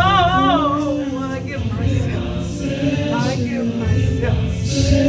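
Gospel worship singing: voices with a wavering vibrato over steady held instrumental notes.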